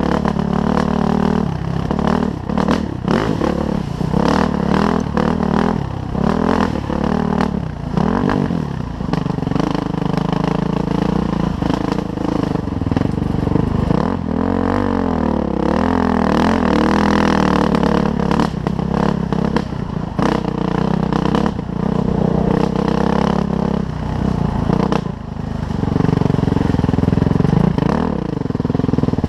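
Suzuki RM-Z450 single-cylinder four-stroke dirt bike engine running under way, its pitch rising and falling with the throttle. Frequent knocks and rattles come from the bike over rough ground.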